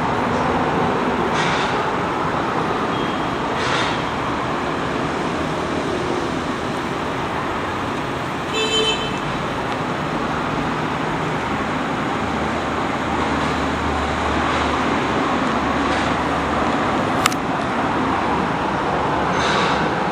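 Steady traffic-like background noise, with a short pitched toot about nine seconds in, a low hum for a few seconds later, and a sharp click near the end.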